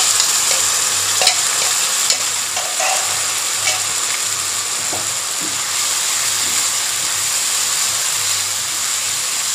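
Blended spice paste of shallots, garlic, ginger and kencur sizzling steadily in a little hot oil in a pan, with a few short taps and scrapes of a utensil as it is stirred.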